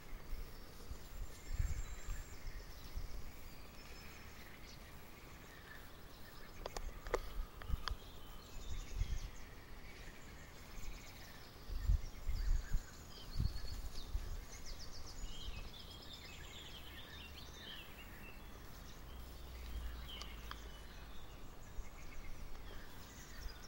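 Small birds chirping and trilling here and there, with irregular low thumps and rumbles on the microphone, the loudest about halfway through.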